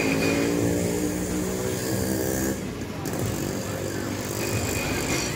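A motor engine running steadily, its even hum giving way to a rougher, less steady noise about halfway through.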